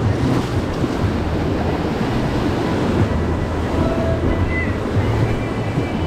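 Whitewater rapid on the Colorado River rushing and splashing against an inflatable raft, a loud, steady churn of water with a constant low rumble underneath.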